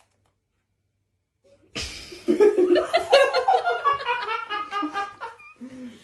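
Near silence, then from just under two seconds in a person laughing loudly in a long run of quick 'ha-ha' bursts that fall in pitch.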